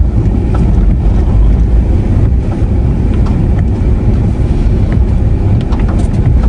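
Car cabin noise while driving on a wet, rain-soaked road: a steady low rumble of tyres and engine, with a few faint scattered ticks.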